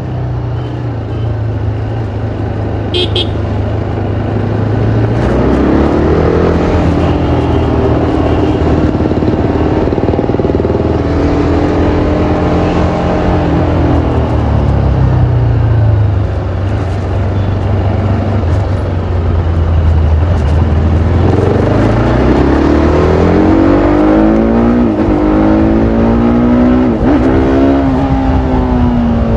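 TVS Apache RR310's single-cylinder engine through its stock exhaust, ridden in traffic: the revs climb about 5 s in, hold, ease back through the middle, then climb again in the second half with a brief dip near the end.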